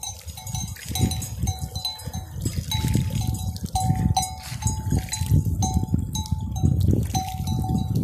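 Metal bells on a grazing flock of sheep clinking again and again, their short rings alternating between two close pitches, over a low rumbling noise.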